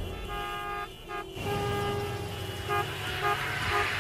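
Car horns honking in stalled city traffic: a couple of blasts, one held for about a second, then a series of short toots near the end, over a low hum of traffic.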